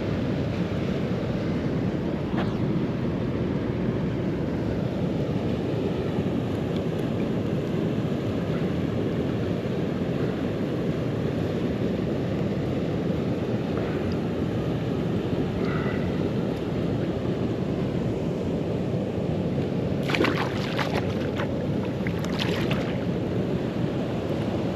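Steady rushing noise of wind and water outdoors, with a few brief clicks and rustles about twenty seconds in and again a couple of seconds later.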